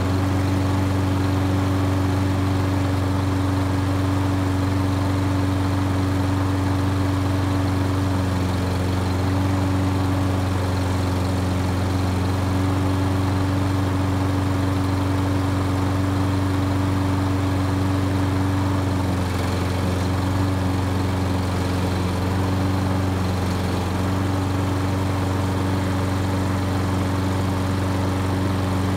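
Self-propelled walk-behind lawn mower engine running steadily at constant speed, its note shifting slightly a few times.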